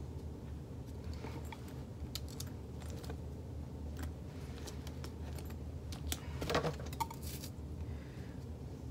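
Metal revolving hole-punch pliers clicking and clinking as they are squeezed through a leather-like handle tab to make a rivet hole, with a louder clatter and a short metallic ring about six and a half seconds in.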